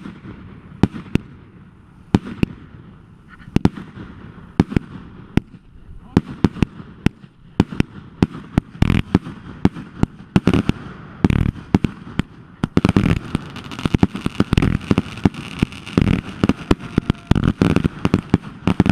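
Fireworks going off in a long series of sharp bangs, scattered at first and then a dense crackling barrage from about two thirds of the way in.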